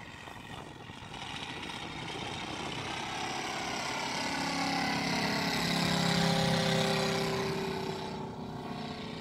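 250 cc Moki radial engine of a large-scale radio-controlled Udet Flamingo biplane model running in flight as the plane passes overhead. The engine grows louder to a peak about six to seven seconds in, then fades, its pitch dropping as it goes by.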